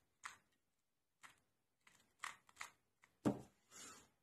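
A 2x2 Rubik's cube being turned through an algorithm: a scattered series of quick plastic clicks, several in fast succession about two seconds in, and a louder knock a little after three seconds.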